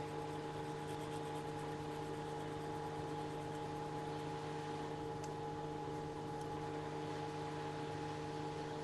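Steady electrical hum with a few fixed tones over an even fan-like hiss, from running workbench equipment.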